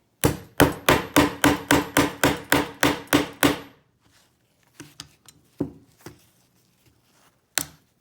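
A hammer rapidly striking a blade wedged into the join of a plastic lockout padlock body: about a dozen strikes at some four a second, each with a metallic ring, then a few scattered knocks near the end.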